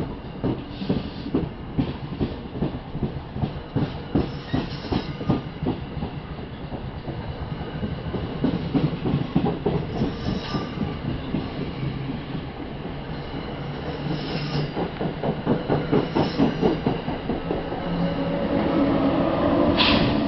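NJ Transit Comet passenger cars rolling past, their wheels clicking over rail joints in a quick, continuous rhythm, with brief high wheel squeals a few times. Near the end the ALP-46A electric locomotive pushing at the rear goes by, louder, with a steady hum over the wheel noise.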